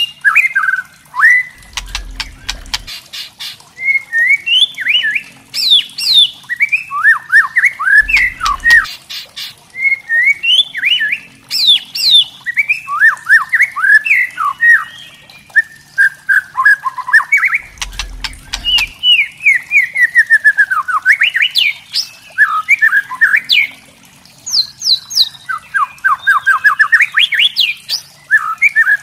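White-rumped shama singing: fast, unbroken runs of sweeping whistled and chattering notes, broken three times by a short, dry crackling rattle.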